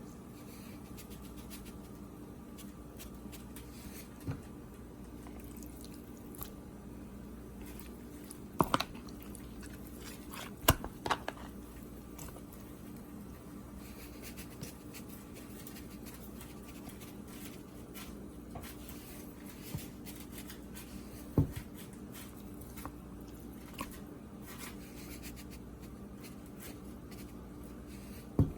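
Seasoning containers and chicken being handled in a kitchen: a few sharp clicks and knocks, loudest around 9 and 11 seconds in, over a steady low electrical hum.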